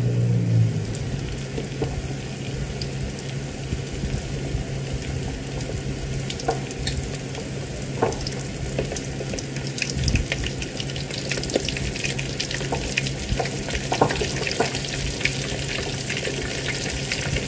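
Flour-coated chicken drumsticks frying in hot oil in an electric multi-cooker pot: a steady sizzle with sharp popping crackles that grow more frequent in the second half, over a low steady hum.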